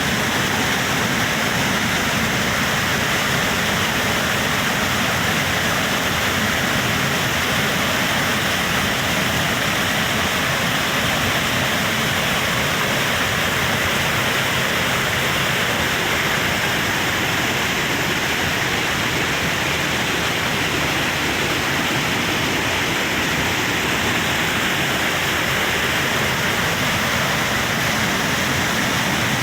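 Waterfall: a steady, even rush of falling and splashing water.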